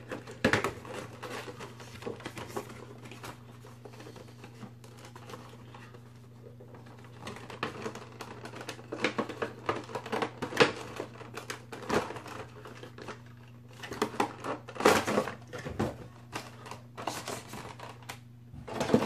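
A small cardboard figure box opened and a clear plastic blister tray with a cardboard insert slid out and handled: scattered clicks, scrapes and crinkles of cardboard and stiff plastic, coming in irregular bunches.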